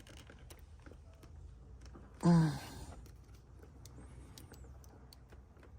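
A man's short sigh about two seconds in, over faint scattered clicks of plastic airbag connectors being handled.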